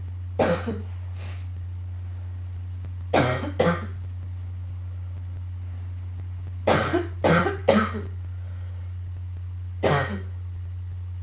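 A girl coughing in short bouts: one cough, then a pair, then a quick run of three, then one more, over a steady low hum.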